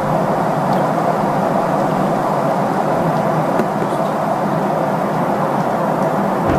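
Steady cabin noise of a Boeing 777 airliner in cruise flight: engine and airflow noise coming through the fuselage at a window seat, an even hiss-like rumble with no change.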